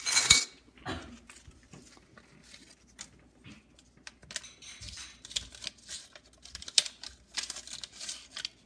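Paper banknotes being pulled out and unfolded by hand, crinkling and rustling in many quick, irregular crackles, after a brief clatter of coins in a bowl at the very start.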